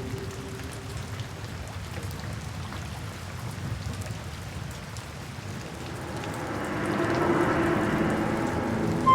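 Steady rain falling, with soft background music fading out about a second in and swelling back in over the last few seconds.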